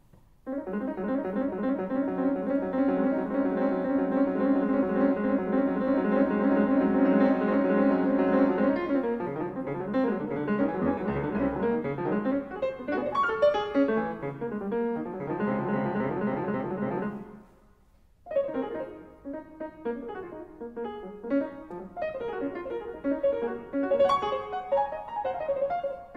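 Yamaha CFX concert grand piano playing, picked up by a Sennheiser MKE-2 miniature lavalier microphone. A dense, sustained passage opens; the music breaks off briefly about two-thirds of the way through and resumes with quicker, separate notes.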